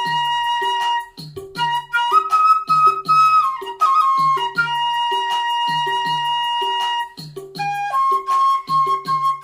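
Music: a flute plays a melody of long held notes with short sliding runs between them, over a steady drum beat of about two hits a second.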